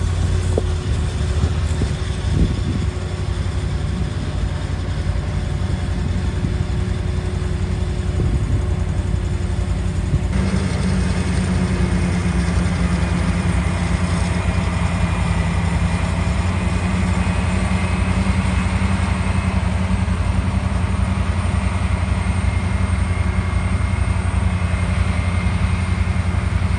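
Heavy farm machinery engines running steadily. The sound shifts abruptly about ten seconds in, then carries on just as steadily.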